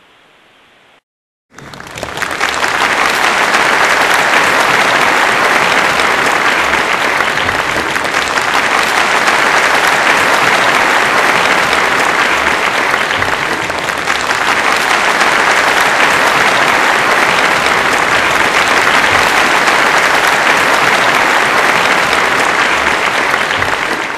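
Applause, starting after a short silence about a second and a half in and then going on steadily.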